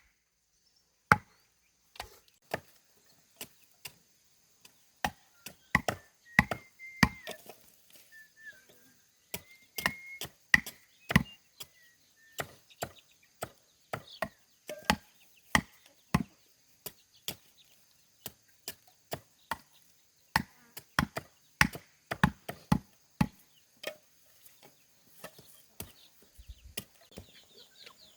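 Repeated chopping strikes of a blade into wood, sharp and irregular, one or two a second with short pauses between runs.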